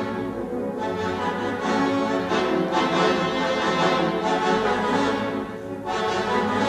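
Orchestral cartoon score with brass to the fore, playing steadily.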